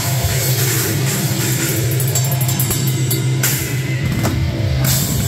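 Live heavy rock band playing loud through amplifiers: electric guitars holding a low, sustained chord under a drum kit's hits and cymbal crashes.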